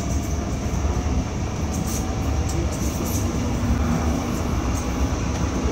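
DÜWAG Pt-Wagen articulated tram running along its track, heard from inside the driver's cab: a steady rumble of wheels and running gear with a faint whining tone.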